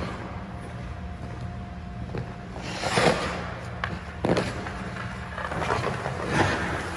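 Hockey goalie's skate blades scraping and carving on ice in several pushes: a strong scrape about three seconds in, a short sharp one a second later, and a longer scrape around six seconds as the goalie drops into the butterfly. A steady low hum runs underneath.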